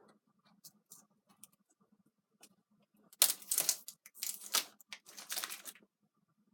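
Packaging of fireworks mortar shells being handled and opened by hand: light scattered clicks and taps, then three louder noisy bursts of handling between about three and six seconds in.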